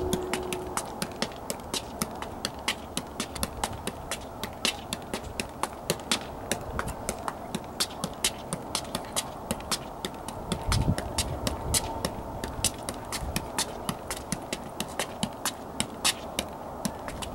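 Soccer ball being juggled on the feet: a steady run of sharp taps, about three a second, as the ball bounces off the shoe again and again without dropping.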